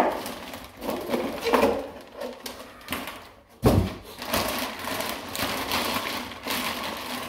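Clear plastic bag crinkling and rustling as a paint sprayer's head unit is worked out of it, with one short thump a little under four seconds in.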